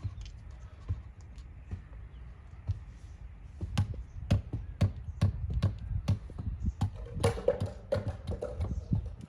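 Repeated sharp taps, about two a second, starting a few seconds in and growing louder, over a low steady rumble.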